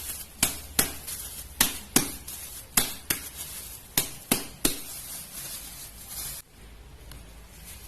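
About ten sharp knocks of a kitchen utensil on a hard surface, two or three a second and irregularly spaced, while getuk is being made. The knocking stops about five seconds in. A short hiss follows and cuts off suddenly.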